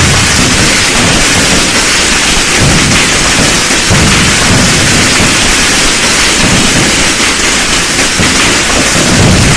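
A dense, unbroken barrage of firecrackers crackling, with deeper booms breaking through every second or two.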